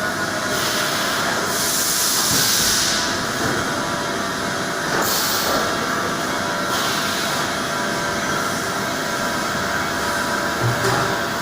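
Hartford CNC milling machine running with a steady hum and whine of several tones, and two long bursts of hissing, the first about half a second in and the second around five seconds in.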